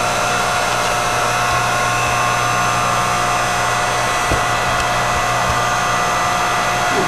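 Electric hydraulic log splitter (Tiya 8-ton, 2,300 W) running steadily: the electric motor and hydraulic pump give a constant hum with a steady whine. A small knock comes about four seconds in.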